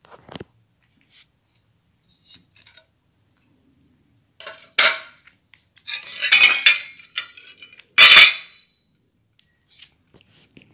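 Stainless steel cat food bowl clattering and scraping against a hard table top, a few sharp metallic knocks in the second half, the loudest about eight seconds in.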